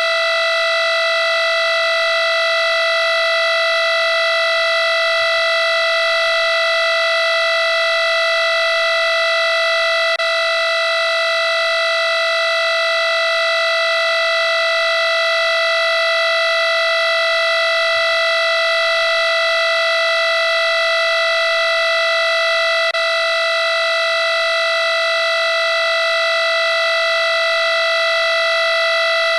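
Digital alarm clock buzzer sounding one continuous, unbroken electronic buzz tone, steady in pitch and loudness.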